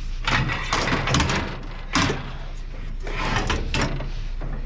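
Knocks and clatters of scrap items being picked up and handled, about seven short hits spread irregularly over the few seconds, over a steady low rumble.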